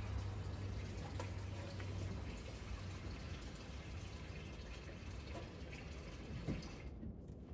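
Water running steadily out of an opened drain valve on a race car's ice-tank cooling system into a bucket, as the tank is drained before coolant goes in.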